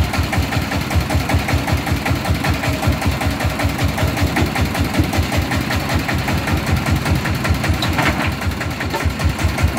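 Công nông's single-cylinder diesel engine running at idle with a fast, even chugging beat.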